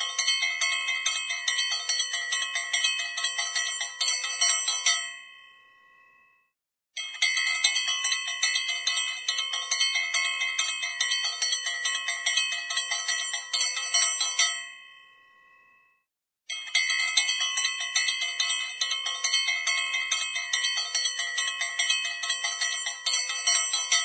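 A bell struck rapidly and continuously, in three long spells each ending in a short ring-out and then dead silence, like a looped bell sound effect.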